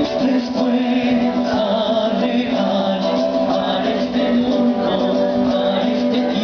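A group of voices singing together, accompanied by a strummed acoustic guitar.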